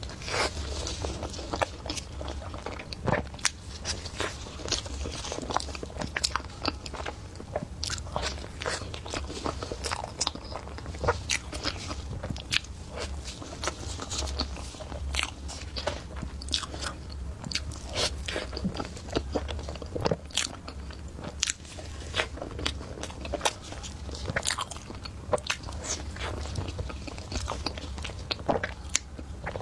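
A person biting and chewing crunchy food close to the microphone: many irregular, crisp crunches over a low steady hum.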